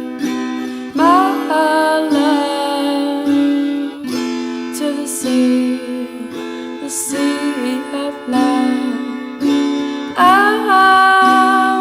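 Music led by a plucked string instrument, with sustained notes and a few gliding pitch bends.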